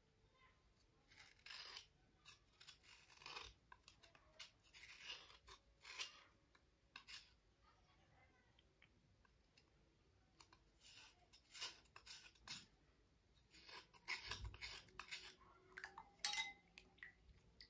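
Slate cubes being cleaned by hand: short, irregular dry scraping and rubbing strokes on the slate, in clusters with pauses between them.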